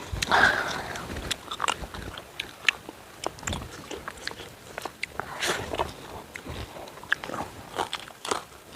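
A person eating close to the microphone: irregular biting, chewing and lip smacks.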